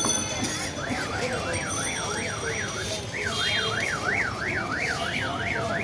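An electronic siren warbling quickly up and down, about three sweeps a second, in two runs with a short break about three seconds in, over the steady hubbub of a busy street.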